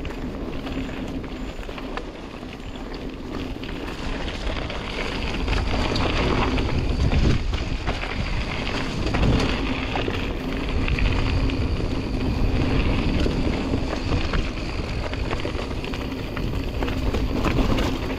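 Mountain bike riding down a rooty singletrack: tyres rolling over dirt and roots and the bike and chain rattling, with wind noise on the microphone. The noise grows louder about four seconds in.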